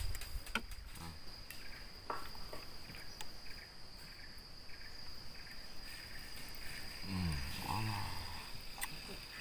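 Insects chirring in a steady high-pitched tone, with faint pulsing chirps beneath it. About seven seconds in comes a brief low sound of wavering pitch, and a few faint clicks sound here and there.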